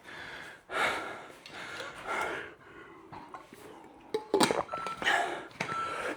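A man breathing hard and gasping while recovering between exercise sets. About four seconds in comes a short clatter, the loudest sound, followed by two short high beeps about a second apart.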